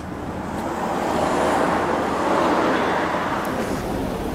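A car passing on the road: tyre and engine noise swells about a second in, peaks around the middle, then fades over steady street traffic noise.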